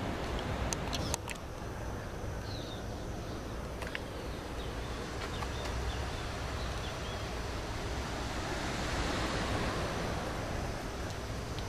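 Wind blowing across the camera's microphone, a steady rushing noise heavy in the low end, with a few sharp handling clicks about a second in.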